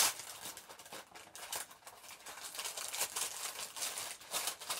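Cardboard subscription box being opened by hand, its lid and packing rustling irregularly.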